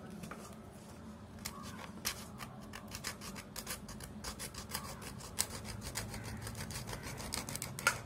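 Knife scraping and cutting at dried fish: a run of short, dry scrapes and clicks, several a second, starting about a second and a half in.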